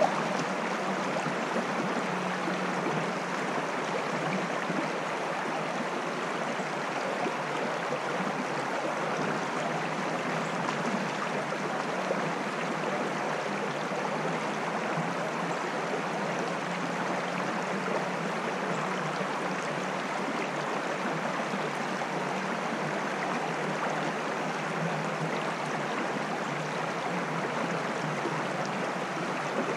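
Shallow stream rushing steadily over rocks in a riffle close to the microphone.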